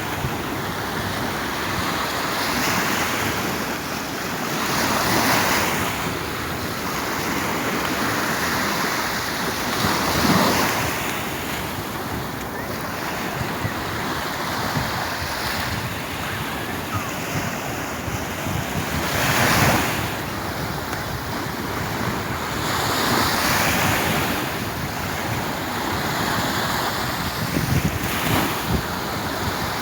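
Sea waves breaking and washing on the shore, the surf swelling every few seconds, with some wind on the microphone.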